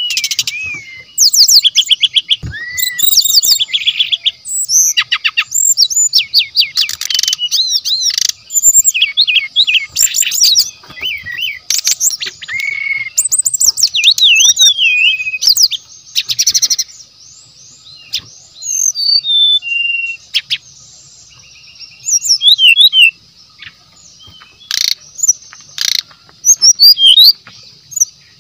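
Brown-chested jungle flycatcher (sikatan rimba dada coklat) singing a fast, varied song of trills, rattles and whistled rising and falling phrases in bursts with short pauses. A faint steady high hum runs underneath.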